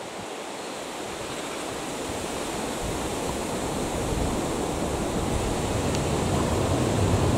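ScotRail Class 170 Turbostar diesel multiple unit approaching, a steady rumble and rush that grows gradually louder, deepening toward the end.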